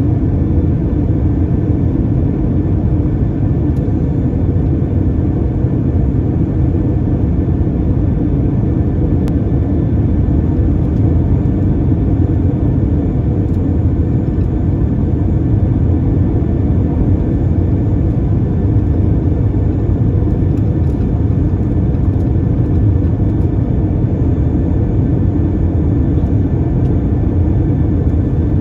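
Steady low rumble of engine and airflow noise heard inside the cabin of an Airbus A321ceo airliner, holding constant with no sudden changes.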